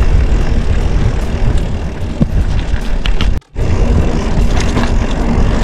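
Wind buffeting the microphone of a handlebar-mounted camera while a mountain bike rattles over a rough, rutted dirt road. The sound cuts out for a moment about three and a half seconds in.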